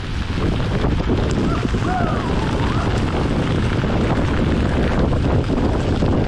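Wind rushing over the camera's microphone as a mountain bike runs fast downhill, mixed with the rattle and jolts of the bike over rough trail.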